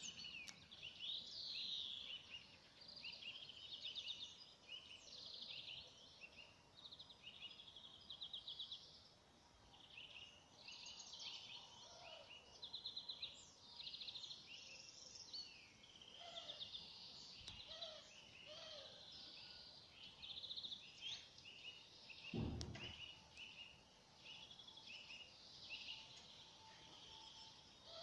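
Several songbirds singing at once, a busy chorus of chirps and rapid trills throughout, with a single dull thump about two-thirds of the way through.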